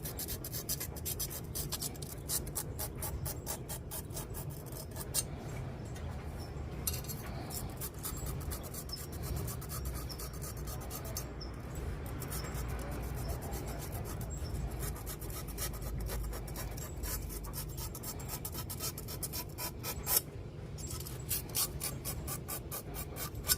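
Small natural sharpening stone rubbed in quick, repeated strokes along a steel machete blade: a scratchy, rasping scrape with a couple of brief pauses between runs of strokes.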